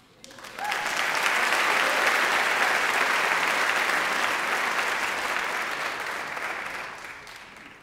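Audience applauding, swelling within the first second, holding steady, then dying away over the last couple of seconds.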